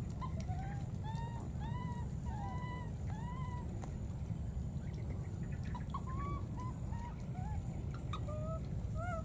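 Baby monkey crying: a quick run of short, arching cries in the first few seconds, then more spaced cries later, over a steady low rumble.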